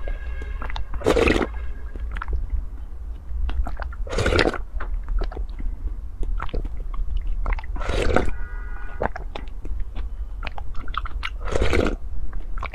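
A person slurping the leftover sauce straight from a large glass bowl held to the mouth: four long slurps, roughly every three and a half seconds, with small wet mouth clicks of chewing and swallowing between them.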